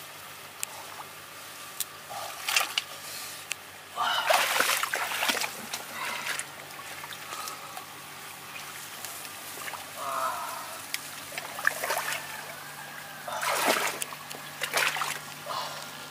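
Shallow muddy ditch water splashing and sloshing as hands and a mesh net are pushed and dragged through it, in irregular bursts, the loudest about four seconds in and again near the end.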